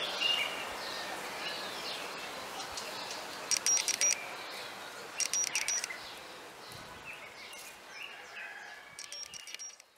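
Wild birds calling. A short, rapid trill with a high ringing note comes three times, among scattered softer chirps, over a steady outdoor hiss that fades out at the very end.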